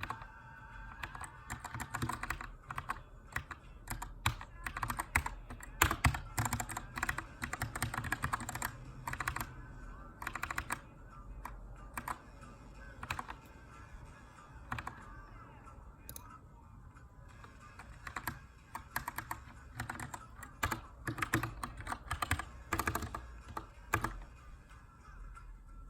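Typing on a Keychron K2 aluminium mechanical keyboard with brown switches: key clicks in irregular bursts with short pauses, as in text editing. Faint background music underneath.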